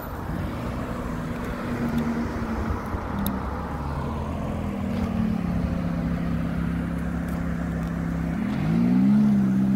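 Ferrari F430's V8 engine running as the car drives slowly toward and past, growing louder as it nears. Near the end the engine pitch rises quickly as it accelerates.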